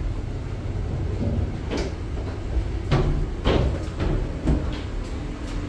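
People walking with rolling luggage through a ship's boarding gangway: a steady low rumble with four sharp knocks spread through the middle of the stretch.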